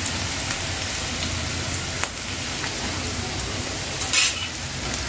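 Sliced onions and spice paste frying in hot oil in an aluminium pan, sizzling steadily. There is a brief, louder burst of sizzle just after four seconds in.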